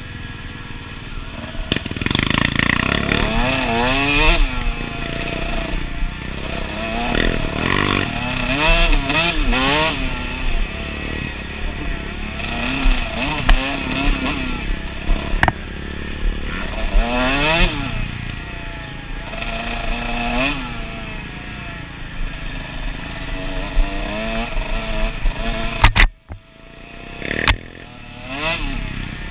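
Dirt bike engine on the move, revving up and dropping back again and again, with clatter from the bike over the rough trail. About 26 seconds in the sound drops away suddenly for a moment, then the engine comes back.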